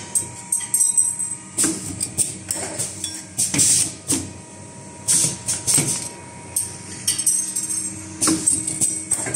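Automatic flat wire ring making machine running as it feeds and bends flat steel strip: a string of short, irregular bursts of hissing, jingling metallic noise about every second or so, over a steady mechanical hum.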